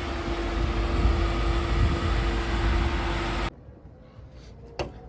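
Ford 5.0 V8 car engine running loud with a steady drone, cutting off abruptly about three and a half seconds in.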